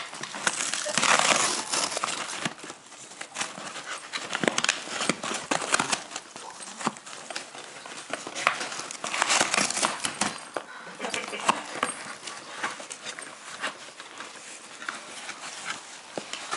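A Jack Russell terrier rooting through a cardboard parcel: the box and its packing crinkle, scrape and rustle in uneven flurries as she noses and digs inside, with the dog's panting breath. The louder flurries come about a second in and again near the middle.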